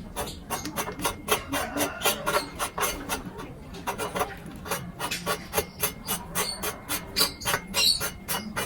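Hand sanding: quick rasping back-and-forth strokes, about three or four a second.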